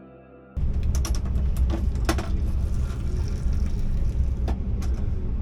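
Moving passenger train heard from inside a carriage: a steady low rumble with scattered rattles and clanks. It starts abruptly about half a second in, after soft ambient music stops.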